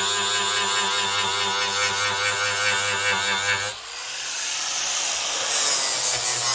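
Small electric power tool motor running steadily, cutting out a little under four seconds in and spinning back up over the next two seconds.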